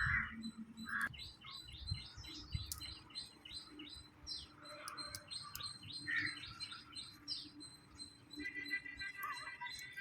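Small birds chirping: a rapid series of short, repeated chirps through most of the stretch, with a different, steadier call near the end.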